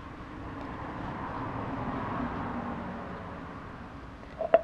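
A vehicle passing by: a steady rushing noise with a low hum that swells and fades over about three seconds. Near the end there is a sharp double click with a short metallic ring.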